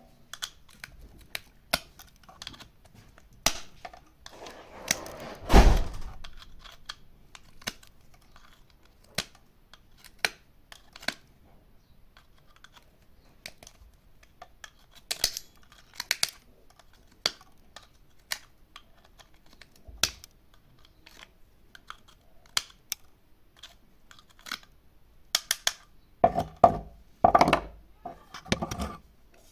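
Scattered sharp clicks and light knocks at irregular intervals, with a louder thump about six seconds in and a cluster of knocks near the end.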